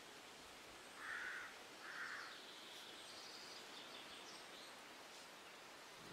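Quiet outdoor ambience with faint, high bird chirps in the middle. About a second in, two short soft sounds come a second apart.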